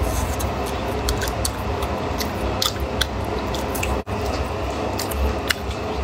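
Close-up chewing and wet mouth clicks of someone eating a piece of beef huoshao flatbread soaked in chili oil, over a steady hiss.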